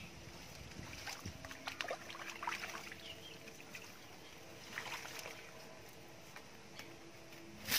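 Rustling and crackling of hands working through dense wet plants and handling a caught fish at a wicker fish basket, in scattered bursts. A sharp click at the very end is the loudest sound.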